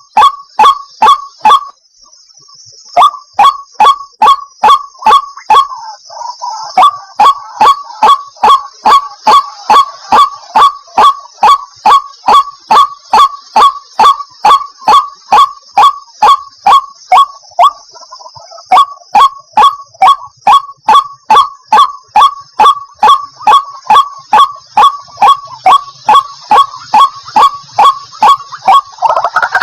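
White-breasted waterhen calling: a long run of loud, evenly repeated single notes, about three a second, with a short pause a couple of seconds in, over a steady high hiss.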